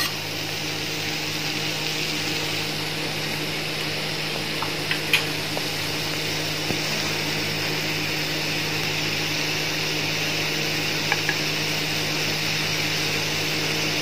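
Paneer cubes and vegetable pieces sizzling steadily in oil on a hot nonstick grill pan, with a steady low hum underneath and a couple of faint ticks.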